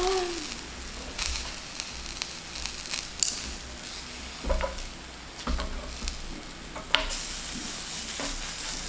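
Zucchini slices sizzling on a hot griddle, a steady frying hiss, with a few sharp clicks and knocks as chopsticks work the pan and fresh slices are laid on.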